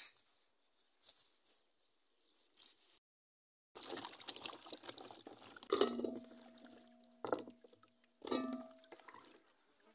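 Soft rustling of hands working in soil, then, after a brief cut to silence, water splashing as peeled sweet potatoes are washed by hand in a basin. Twice, about 6 and 8 seconds in, a wet potato knocks into an aluminium basin, which rings on briefly.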